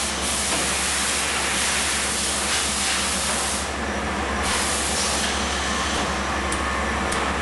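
RF welder with a four-station turntable running: a steady hiss over a low hum, the hiss briefly dropping away about four seconds in.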